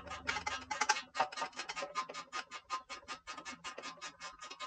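Socket ratchet wrench clicking rapidly, roughly seven or eight clicks a second, as a bolt on a small engine is turned.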